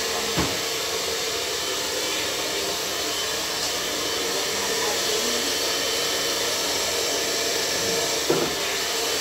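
Handheld hair dryer blowing steadily on hair as it is brushed through, with a faint steady hum under the rush of air. Two brief knocks, about half a second in and near the end.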